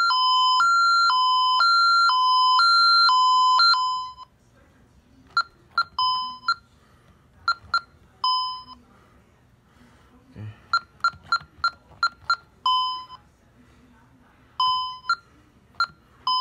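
Safewatch Pro 3000 alarm's interior siren sounding a hi-lo tone, two pitches alternating about every half second, until it cuts off about four seconds in as it is silenced from the keypad. After that come short keypad key-press beeps and a few longer single beeps from the keypad.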